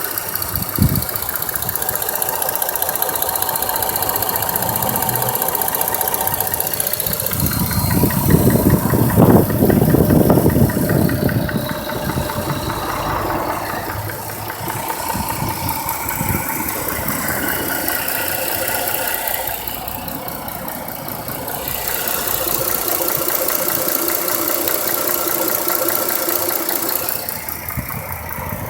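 Chrysler 300C engine idling fully warmed up, with a knock in the engine. It grows louder for a few seconds about a third of the way through.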